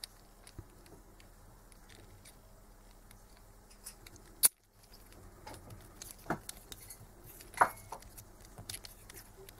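Faint metallic clicks and clinks of a Delphi common-rail diesel injector's nozzle and nozzle nut being handled and seated by hand, with a sharp click about four and a half seconds in and a few more near the end.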